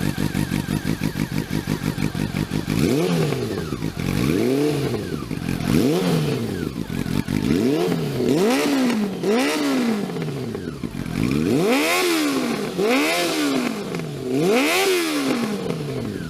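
Honda CB400's inline-four engine through a GPR Deeptone aftermarket slip-on exhaust, idling at first, then revved in about nine quick blips, each rising and falling in pitch.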